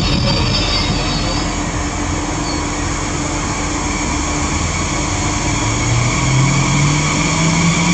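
An ETR 400 Frecciarossa 1000 high-speed electric train runs slowly in along a station platform with a steady mechanical hum. In the last few seconds, a whine from its traction equipment rises in pitch.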